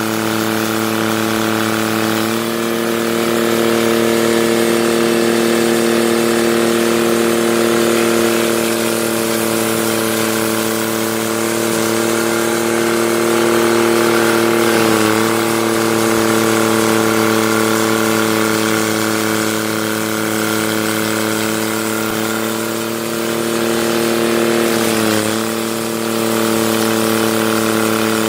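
Engine of a heavy machine running steadily at constant speed, with a brief wobble in pitch about halfway and again near the end.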